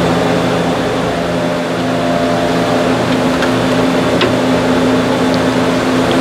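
A motor running steadily with a hum, and a few light metallic ticks from hand tools.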